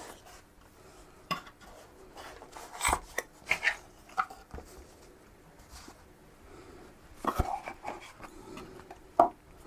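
A cardboard multimeter box being opened and its contents handled: irregular rustling and scraping with light knocks, and sharper knocks about three, seven and a half, and nine seconds in.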